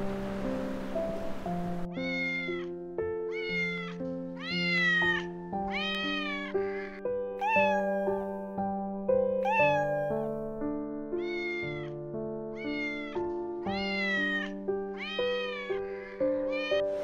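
Domestic cat meowing again and again, about a dozen short meows roughly one a second, starting about two seconds in, over soft instrumental background music with long held notes.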